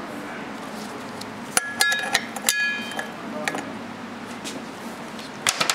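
Metal parts clinking against the steel fluid reservoir of a Rolls-Royce Silver Cloud III power steering pump during reassembly. A few sharp clinks with a short ring come between about one and a half and two and a half seconds in, and a couple more come near the end.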